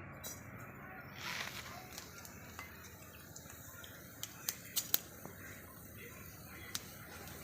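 A few light, sharp clicks or taps, four in quick succession about four to five seconds in and one more near the end, over a faint steady background.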